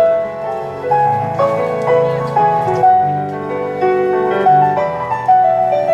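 Electronic keyboard played with a piano sound: a melody of held notes over lower bass notes, a new note struck about every half second.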